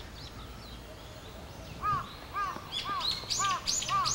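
Birds calling in open grassland: about two seconds in, a steady series of short arched calls begins, about two a second, and quick higher chirps come in over them.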